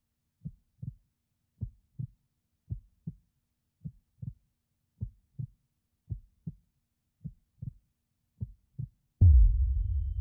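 Slow heartbeat sound effect: eight pairs of soft low thumps, lub-dub, a little more than a second apart. Near the end a deep boom hits and rumbles away, with a faint high steady ringing tone beginning under it.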